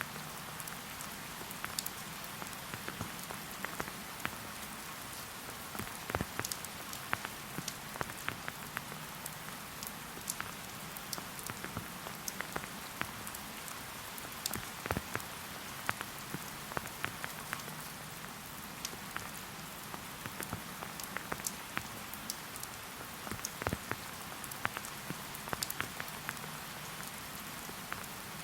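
Steady rain falling: an even hiss with many individual drops ticking sharply and irregularly on close surfaces.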